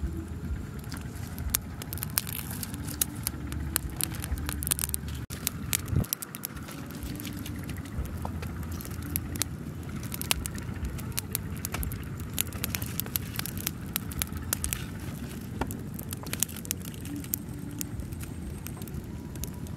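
Open wood fire of dry sticks and twigs crackling, with frequent sharp irregular pops and snaps over a low steady rumble.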